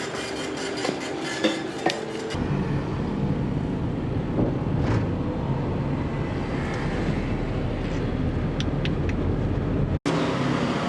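Steady low road rumble of a moving car, heard from inside, after about two seconds of busier background noise with clicks; it cuts off abruptly near the end.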